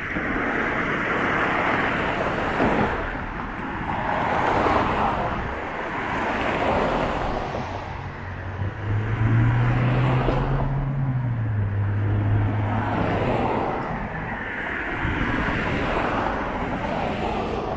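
City street traffic: a run of cars passing close by, each rising and fading as it goes past. In the middle, a heavier vehicle adds a low engine hum for about five seconds, dipping slightly in pitch before it ends.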